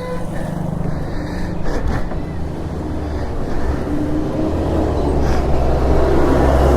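A motor vehicle's engine running steadily at low revs, growing gradually louder over the few seconds.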